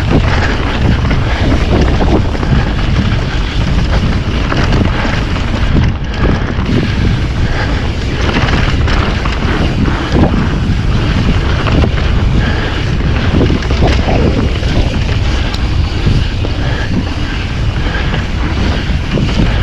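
Wind rushing over the microphone as a mountain bike descends a dirt trail, with tyre roar and frequent knocks and rattles from the bike over rough ground.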